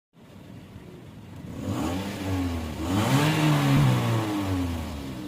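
Suzuki Mehran's three-cylinder petrol engine, which has a missing and misfiring problem, running at idle and then revved up and back down, with the loudest part in the middle.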